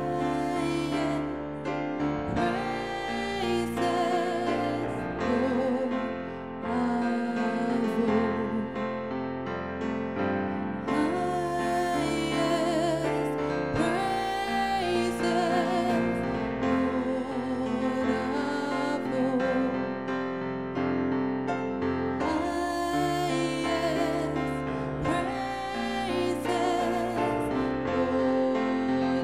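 A woman singing a worship song with vibrato, accompanying herself on an electronic keyboard with a piano sound, playing held chords.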